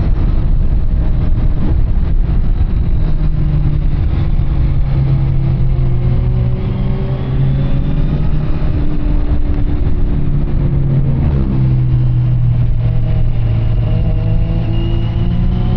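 Kawasaki Z900's inline-four engine through an SC Project CR-T carbon exhaust, under way. The engine pitch climbs and settles in long swells, dropping away briefly a little past halfway before rising again.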